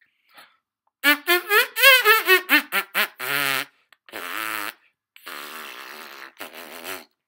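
Trumpet played with the tongue through the teeth: a quick run of short notes sliding up and down in pitch, then several longer held notes with a wavering pitch, the later ones softer.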